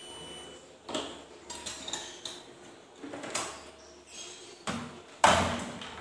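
Knocks and rattles of objects being handled, several in a row, with the loudest, heavier knock about five seconds in.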